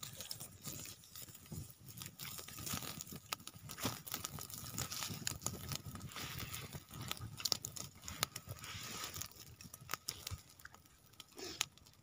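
Wood campfire crackling, with many irregular sharp pops and clicks over a low hiss.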